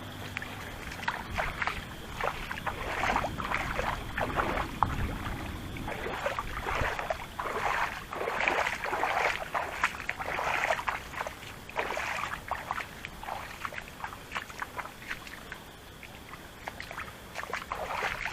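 Water splashing and sloshing in quick, irregular bursts, with rainwater moving in a papaya field.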